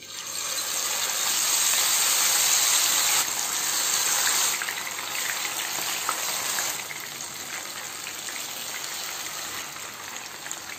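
Masala-coated quail pieces sizzling as they go one by one into hot frying oil in a nonstick pan. The hiss starts as the first piece drops in, is loudest over the first four seconds or so, then settles lower and steadier.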